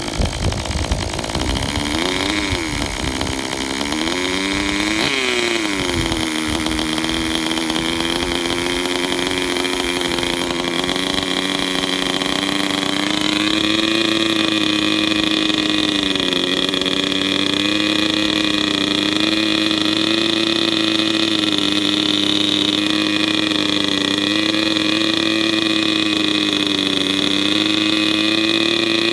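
Kyosho GX12 nitro glow engine of a 1/10 RC car running just after being started. It is revved up and back down twice in the first few seconds, then settles into a steady idle.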